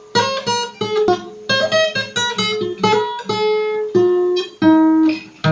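Acoustic guitar playing a picked introduction: single notes and partial chords plucked one after another at a steady pace, with a fuller chord struck near the end.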